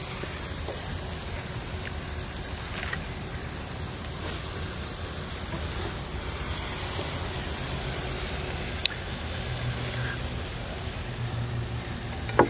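Steady outdoor background noise: a low rumble with an even hiss over it, and a single sharp click just before nine seconds in.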